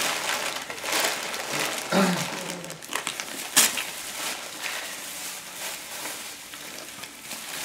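Gift wrapping paper being torn and crinkled by small hands in a run of short rustling rips, with one sharp loud rip about three and a half seconds in. A brief voice-like sound comes about two seconds in.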